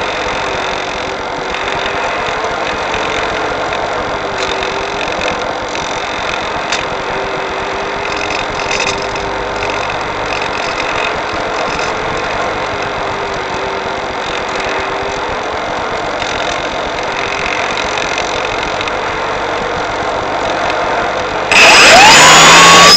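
Onboard audio from an RC electric glider in flight: a steady rushing noise with a faint hum. About 21 seconds in, a sudden much louder whine starts, rising in pitch and then holding steady.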